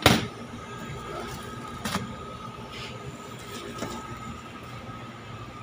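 The lid of a white chest freezer knocks shut right at the start, followed by smaller knocks and handling of a plastic bag of bread about two and four seconds in, over a steady faint tone.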